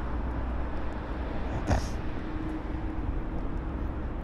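Steady low rumble of outdoor city background noise, with one short knock a little under two seconds in.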